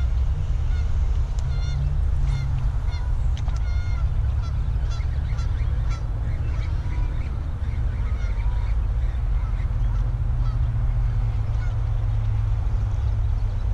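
Waterfowl calling in many short, repeated calls, thickest in the first half, over a steady low rumble.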